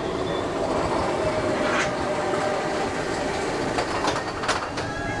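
Expedition Everest roller coaster train rolling along its track: a steady rumble, with a few sharp clacks in the second half.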